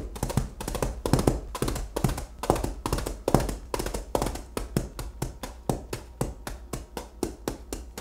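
Coconut shell halves struck into a bed of kitty litter: foley for horse hooves on dirt. The sound is a quick, continuous run of dull taps, several a second, with a gritty crunch, stopping just before the end.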